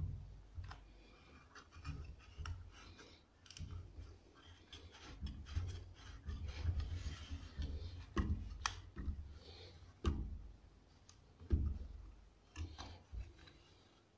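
Hands handling wooden bars, bolts and a plastic quick-grip bar clamp: scattered clicks, taps and short low knocks of wood and plastic being set and adjusted.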